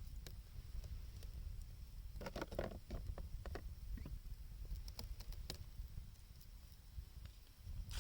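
Wood fire crackling with scattered sharp pops, a quick run of them about two seconds in, over a steady low rumble of blizzard wind.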